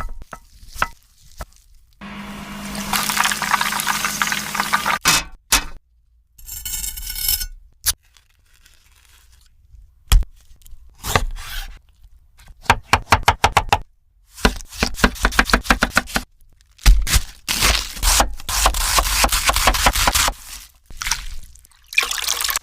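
A sequence of kitchen food-preparation sounds: scraping, clinks, and stretches of hissing noise, with a run of quick, evenly spaced taps about halfway through.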